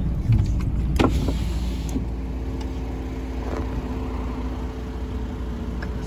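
Engine of a vehicle pulled over at the roadside, idling with a steady low rumble and a faint even hum. A single short click sounds about a second in.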